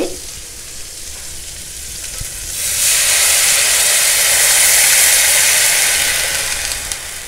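Water poured from a glass jug into a hot steel kadai of frying vegetables, a quiet sizzle at first, then a loud steam hiss from about two and a half seconds in as the water hits the hot pan, fading near the end.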